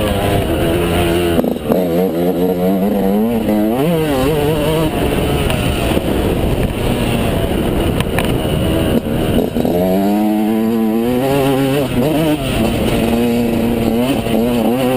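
Yamaha YZ125's two-stroke single-cylinder engine being ridden hard, revving up and down through the gears. The revs drop off about a second and a half in, then climb again, with another strong climb about ten seconds in.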